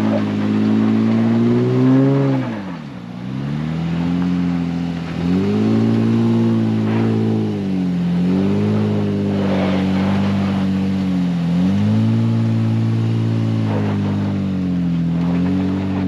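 Honda Ridgeline's 3.5-litre V6 revving up and down repeatedly under load on a steep rutted hill climb. The engine note falls away sharply about two and a half seconds in, then picks up again.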